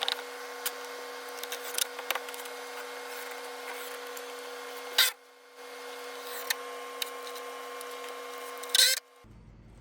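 A steady mechanical hum with a few sharp clicks and knocks. The loudest knocks come right at the start, about halfway through and near the end.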